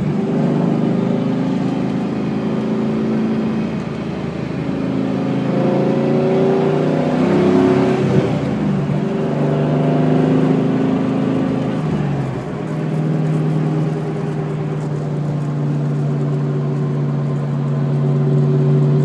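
Trans Am running down the road with a drivetrain whine, its pitch rising and falling with speed through the middle, then holding steady near the end. The owner suspects the S60 rear end, the tires or a bearing.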